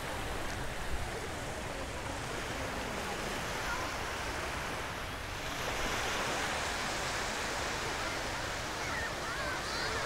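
Small waves breaking and washing up the sand in a steady hiss of surf, which grows a little louder about halfway through.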